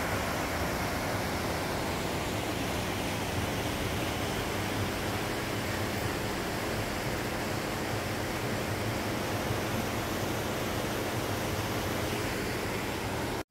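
Steady rushing roar of a whitewater river tumbling over rocks.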